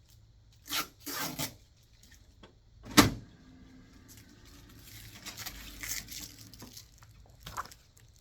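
Brief rustling handling noises, then a sharp knock about three seconds in, followed by a faint low steady hum.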